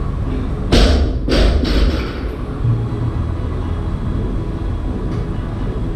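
A medicine ball slammed down on a rubber gym floor: three heavy thuds in quick succession about a second in, the first the loudest, over a steady low rumble.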